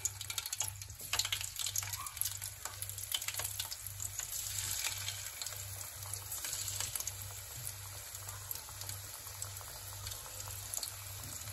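Chicken 65 pieces deep-frying in hot oil in a steel kadai: a steady sizzle with many small crackling pops. This is the second fry of the half-cooked chicken.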